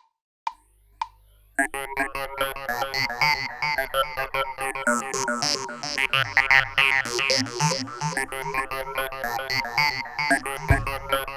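Electronic music with a synthesizer-like lead: a few quick ticks about half a second apart, then a dense run of fast-changing pitched notes that starts about a second and a half in, with low heavy beats coming in near the end.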